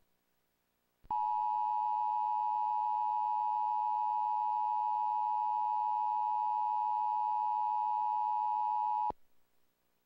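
Emergency Alert System attention signal: the dual-tone 853 and 960 Hz alert tone, starting about a second in, held steady for about eight seconds and cutting off sharply. It heralds a tornado warning.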